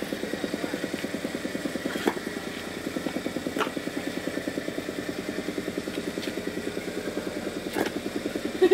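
Petrol-engined soil compactor running steadily, tamping an earth house floor, with a rapid even pulse of about ten beats a second. A few sharp knocks sound over it.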